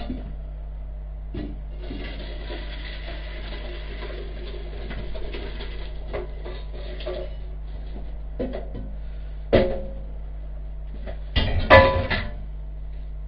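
Cooking utensil scraping and knocking against a pan and pot as cooked vegetables are moved from the pan into the pot. Scraping through the first half, a sharp knock about ten seconds in, and the loudest cluster of clanks near the end, over a steady low hum.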